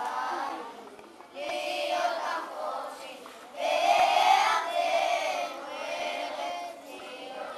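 A group of high voices singing a song together in phrases, the loudest phrase starting about three and a half seconds in.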